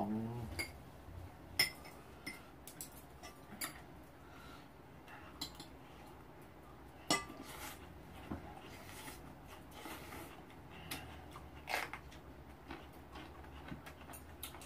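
Metal chopsticks and spoons clinking lightly against bowls and a rice pot while eating: scattered short clicks, with a few louder clinks about seven and twelve seconds in.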